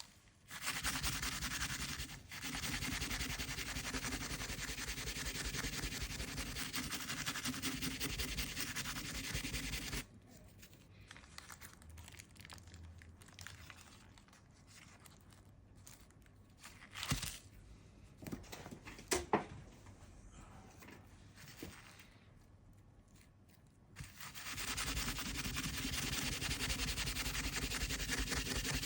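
Steady dry rubbing on a hard surface, in two long spells several seconds each, with a few light knocks in the quieter stretch between them.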